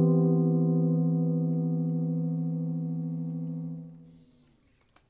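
Telecaster-style electric guitar letting a held chord ring out as the closing chord of the piece, slowly dying away and gone about four seconds in.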